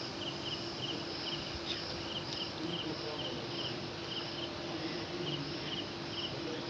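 Insects chirping: a steady train of short, high chirps, about three a second, over a faint low steady hum.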